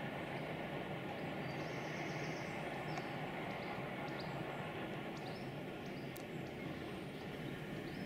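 Distant train running along the line, a steady hiss and rumble, with faint high chirps over it.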